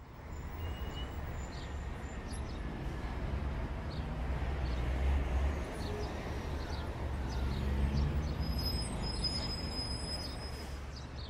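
City street ambience: a steady low rumble of traffic under a general outdoor noise bed.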